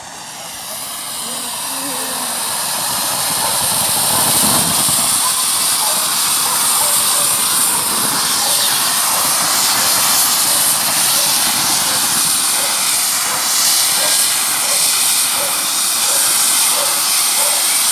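A firework fountain burning with a loud, steady hiss that builds over the first few seconds and then holds, with no bangs.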